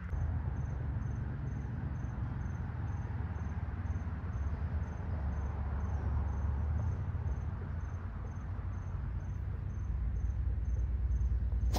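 An insect chirping steadily, a high thin pulse about twice a second, over low wind rumble on the microphone. At the very end comes the sharp crack of a driver striking a golf ball off the tee.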